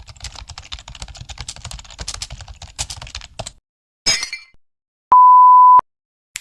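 A run of stock sound effects: about three and a half seconds of rapid, irregular keyboard-typing clicks over a low hum, a short burst of noise about four seconds in, then a loud, steady censor bleep lasting under a second that starts and stops abruptly.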